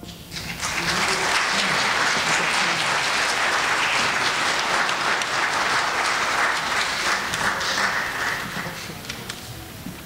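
Audience applauding after a concert band's piece, starting about half a second in and dying away near the end.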